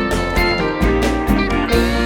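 Background music with acoustic guitar and a steady beat.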